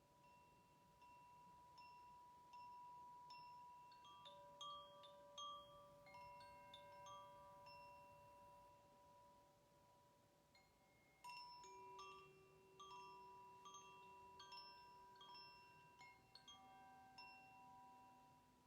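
Metal chimes struck at irregular moments, faint. Several clear notes of different pitch ring on for seconds and overlap, with a busier cluster of strikes about two thirds of the way through.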